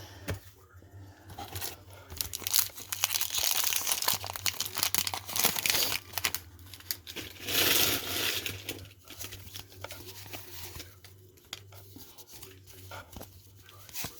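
Wax-paper wrapper of a 1991 Topps baseball card pack being torn open and crinkled, in irregular rustling bursts, loudest about eight seconds in.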